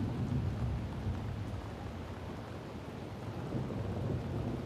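Steady rain with a low rumble of thunder underneath, the rumble loudest at the start.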